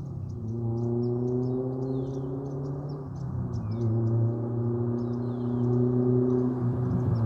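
Honda S2000's four-cylinder engine running through a Buddy Club Spec II exhaust at a steady engine speed, giving an even tone that briefly dips about three seconds in and again near the end.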